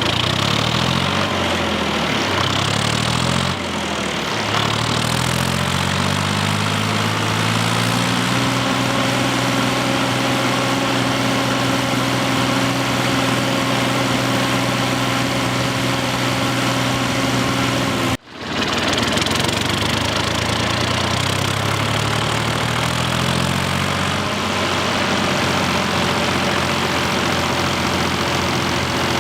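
Tractor engine revving up and down, then running at a steady speed. It cuts off abruptly about 18 seconds in, and an engine is heard again, climbing in pitch and settling to a steady run.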